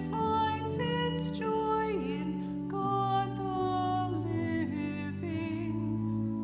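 A solo woman's voice singing a slow hymn over sustained instrumental accompaniment, the longer notes held with vibrato.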